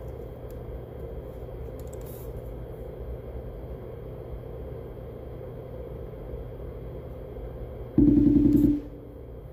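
Steady low hum and rumble with a thin, faint high whistle and no speech. About eight seconds in, a loud buzzing tone cuts in for under a second.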